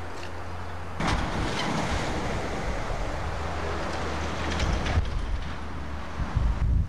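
Wind buffeting a camcorder microphone: a rumbling hiss that steps up suddenly about a second in, with stronger gusts near the end.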